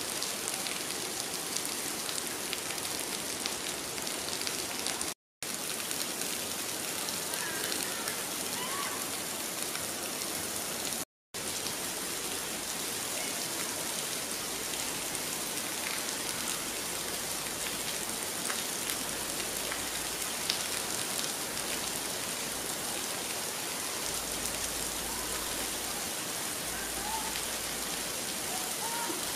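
Steady rain falling, an even hiss, broken by two brief silent gaps about five and eleven seconds in.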